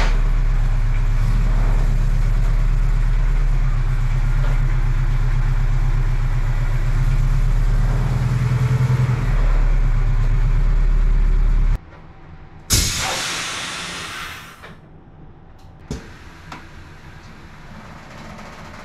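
A loud, steady low hum with a fast flutter that cuts off abruptly, then a sudden loud hiss of air that fades away over about two seconds: the bagged Mazda B-Series mini truck's air suspension being let down onto the ground.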